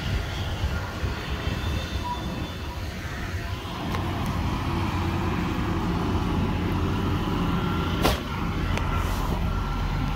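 A two-wheeler's engine running as a steady low rumble, a little louder from about four seconds in. A single sharp click comes about eight seconds in.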